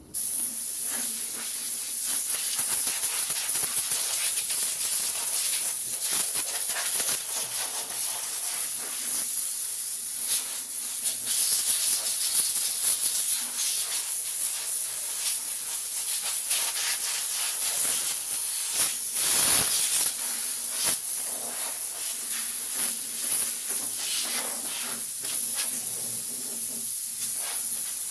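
Compressed air hissing steadily from a blowgun as dirt is blown off an old Briggs & Stratton lawnmower engine, the hiss wavering in loudness.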